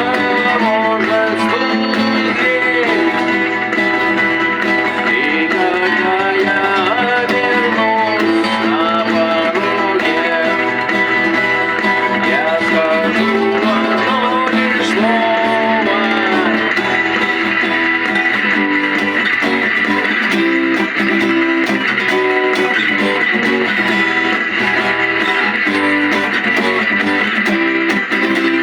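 Instrumental rock passage with no vocals. A lead electric guitar plays bent, sliding notes over strummed rhythm guitar and bass, then gives way to a fuller, steadier strummed texture about halfway through.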